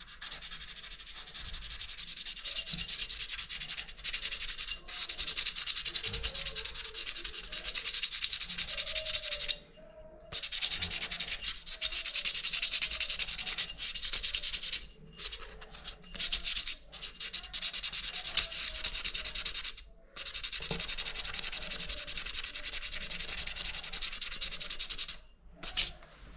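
Steady abrasive rubbing, like sanding or scrubbing, in runs of several seconds broken by several short pauses.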